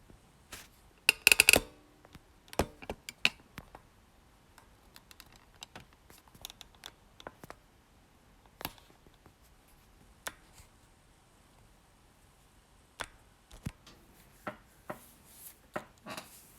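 Handling of a trading-card box's cardboard and plastic packaging: scattered sharp clicks and taps, with a quick dense crackle about a second in and another run of taps near the end.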